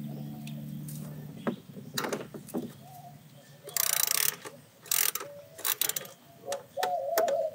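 Ratchet wrench clicking in short runs, with scattered metallic clicks and knocks, as a coolant bleed valve on the engine's hoses is worked loose.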